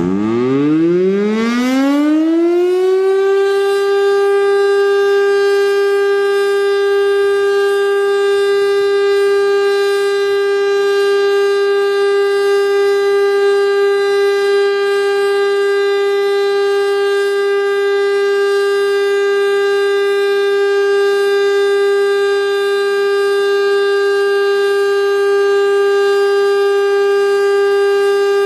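Federal Signal STL-10 seven-port outdoor warning siren winding up, its pitch rising over about three seconds, then holding one steady, loud tone: the steady alert signal of a siren test.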